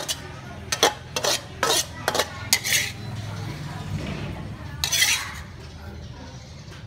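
Metal spatula scraping and clinking against a steel wok and a ceramic plate as stir-fried food is scooped out. There is a quick run of scrapes in the first three seconds, then one longer scrape about five seconds in.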